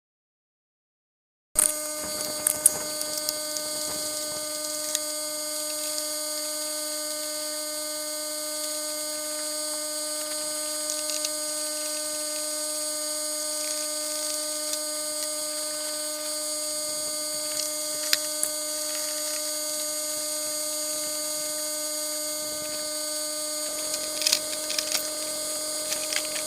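Steady high-pitched whine made of several evenly spaced tones: the background generator's running sound, pitched up into a squeal by footage sped up to 10x, with scattered faint clicks and scrapes from work on the tractor. It starts after about a second and a half of silence.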